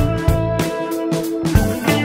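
Background music with electric guitar and a drum kit keeping a steady beat.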